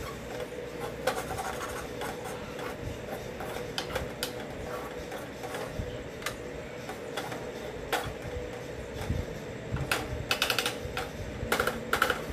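Steel ladle clinking and scraping against a black kadai as food is stirred: scattered sharp clicks, with a quick run of them near the end, over a steady hum.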